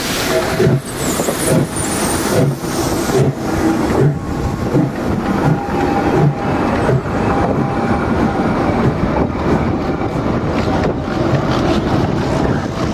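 Steam locomotive E 901 working during shunting, with its exhaust beats at about two a second, sharpest over the first few seconds. They merge into a steady noise of locomotives rolling, with a faint steady whine over it.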